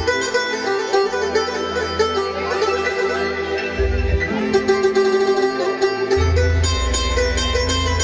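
Live instrumental music from an electronic keyboard: a fast plucked-string melody over a shifting bass line and a steady beat.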